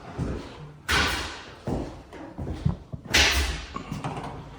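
Two loud thumps, about a second in and again about three seconds in, each with a rushing tail, and lighter knocks in between: sounds of door and trim work in a bare room under renovation.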